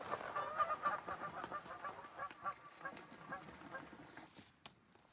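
A noisy flock of birds calling, many short calls overlapping at a quick pace, thinning out and fading away about four seconds in.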